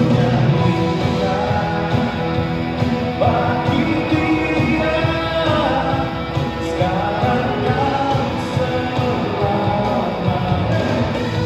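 Live band playing a rock-style worship song at rehearsal, with guitar and a singing voice carrying the melody.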